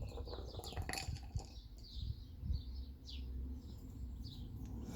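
Faint birds chirping in the background, short falling chirps over a low steady rumble, with a few light clicks.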